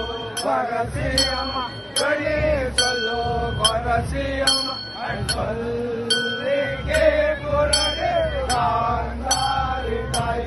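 Devotional music: a male voice singing over a regular beat of metallic ringing strikes, a little more than one a second.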